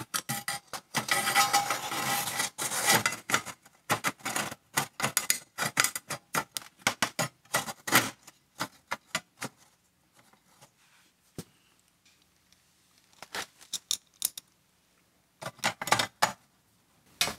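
Small metal parts clicking, rattling and scraping as a thermocouple and its mounting block are fitted to the sheet-metal plate on a kiln's stainless steel jacket. A dense run of sharp clicks fills the first half, then it goes mostly quiet, with a few short bursts of clicks near the end.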